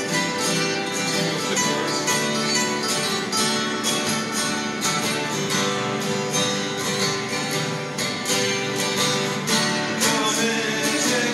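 Three acoustic guitars playing together, strummed and picked, with voices coming in singing near the end.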